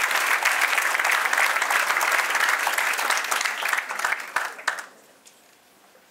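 Audience applauding, thinning to a few last scattered claps and stopping about five seconds in.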